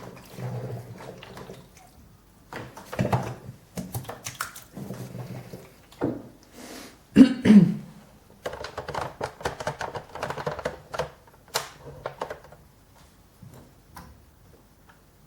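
Irregular clunks, knocks and clatter of things being handled, loudest about seven seconds in, then fading near the end.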